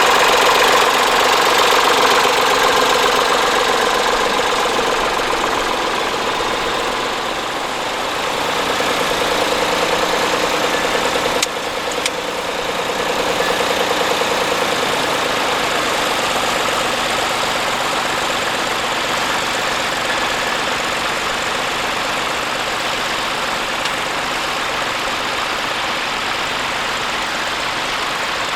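Tractor engine running steadily, its note easing a little and picking up again, with a brief sharp click near the middle.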